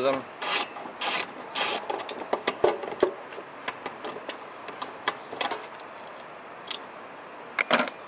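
Socket ratchet clicking in short strokes as screws are backed out of a metal panel: three loud runs of clicks in the first two seconds, then lighter scattered clicks and taps, and one more short burst near the end.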